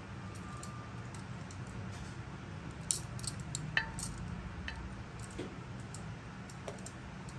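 Metal kitchen tongs clicking and tapping against a ceramic plate as a braised pork chop is set down, a short cluster of clinks about three seconds in with two sharper taps, over a low steady hum.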